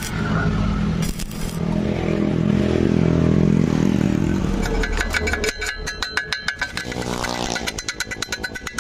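Stick (MMA) arc welding on galvanized square tube, a steady crackling arc over a low hum that stops about five seconds in. Then come quick, repeated sharp metal strokes as the slag is cleaned off the fresh bead. Near the end a falling engine-like tone passes under the strokes.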